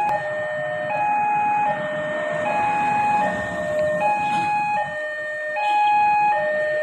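Railway level-crossing warning alarm sounding a steady two-tone high–low signal, one full cycle about every second and a half, warning that a train is approaching. Road traffic runs underneath, with a car driving past near the middle.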